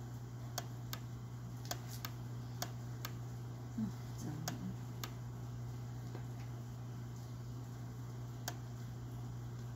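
Sharp single clicks at irregular intervals, about nine in all, from clicking on a laptop as a document is scrolled through, over a steady low hum.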